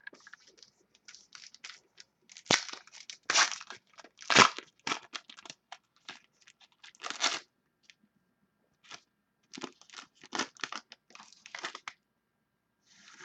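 A trading-card pack wrapper being torn open and crinkled by hand, with cards shuffled and handled: irregular crackly tears and rustles, the loudest a few seconds in and again about seven seconds in.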